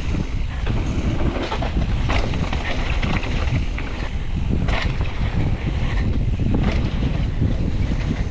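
Wind buffeting the microphone of a camera on a mountain bike riding down a dirt trail, a steady low rumble, with tyre noise and a few sharp knocks and rattles from the bike over bumps.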